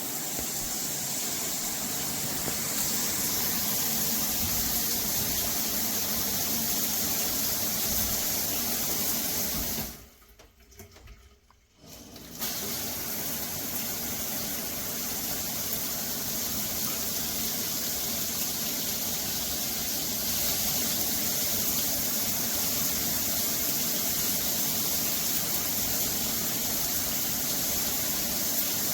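Water spraying from a handheld LED shower head, a steady hiss that stops for about two seconds near the middle and then starts again.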